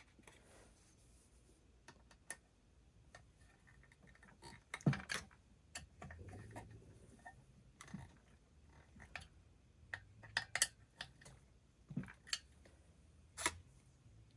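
Faint scattered clicks and light taps of small metal parts and hand tools being handled, with some soft rubbing, as a chainsaw's ignition module is positioned against the flywheel to set the air gap.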